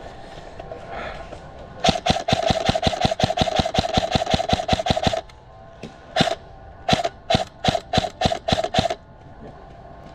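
Krytac Trident MKII CRB-M airsoft electric gun firing close by: a full-auto burst of about three seconds, its gearbox motor whining under the rapid clicks. This is followed by a string of quick single shots and short bursts.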